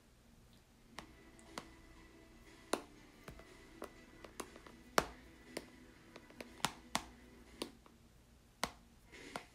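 A stylus tip tapping on a tablet's glass screen: sharp, irregular clicks, about one every half second to second.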